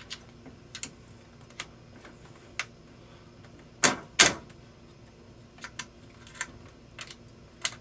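Retainer pins of an H&K 91/G3-type rifle being pressed into the receiver to lock the buttstock on: scattered light metal clicks, with two sharper knocks close together about four seconds in as a palm pushes the pins home.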